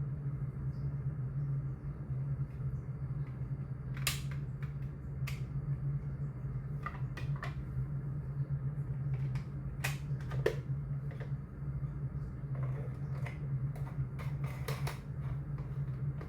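Plastic dust container and filter parts of a Tefal Compact Power XXL vacuum cleaner being handled and clicked into place: scattered sharp clicks and knocks, several in quick succession near the end, over a steady low hum.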